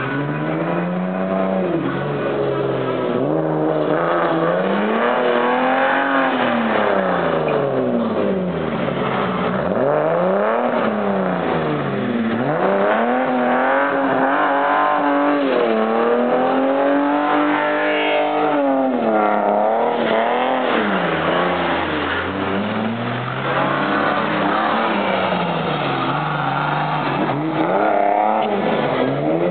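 A BMW 2.5-litre straight-six revving hard in a drift, its pitch rising and falling every few seconds as the throttle is worked to hold the slide.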